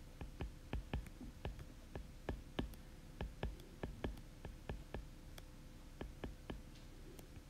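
Stylus tip tapping and clicking on an iPad's glass screen while handwriting; a run of light, irregular taps, about three or four a second, that stops near the end.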